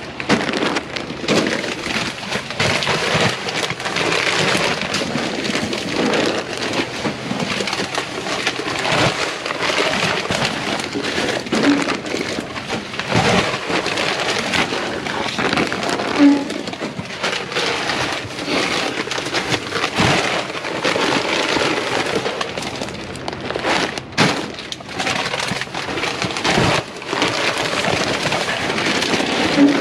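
Continuous crinkling and rustling of plastic bags and boxes being rummaged through in a packed dumpster, with a few sharper knocks.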